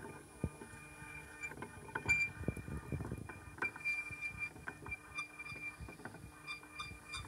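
Anycubic Photon S resin printer's Z-axis lead screw squealing as the build-plate carriage travels: a thin high squeal that comes and goes, with scattered light ticks and a low rumble underneath.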